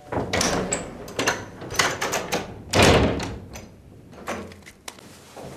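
A door being opened and shut: a run of latch clicks and knocks, with a loud thud about three seconds in, then a few lighter knocks.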